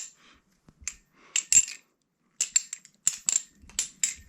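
Kraken 2.5 balisong trainer being flipped: sharp metallic clicks and clacks of the handles swinging and striking each other around the blade, scattered at first, then a quick run of clicks in the second half.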